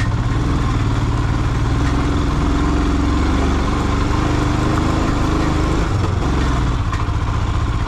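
Motorcycle engine running steadily on the move, its pitch drifting slightly up and down.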